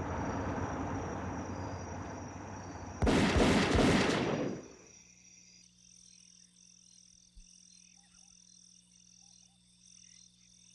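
Car engine and road noise, broken about three seconds in by a sudden loud burst lasting about a second and a half. It falls away to a quiet night chorus of insects and frogs, with a high, evenly pulsing call.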